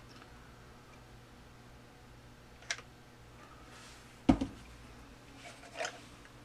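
A sharp click, then a single louder knock and a smaller clatter: hard plastic parts and tools being handled and set down on a workbench, over a faint steady hum.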